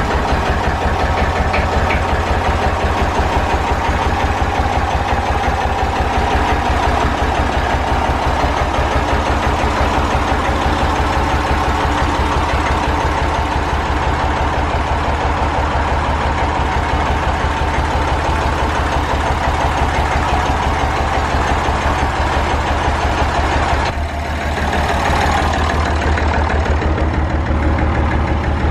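Massey Ferguson 35's three-cylinder diesel engine running steadily, with a rough, uneven beat from firing on only about two cylinders. One cylinder, honed out when the engine was rebuilt and never worked in, is not yet firing.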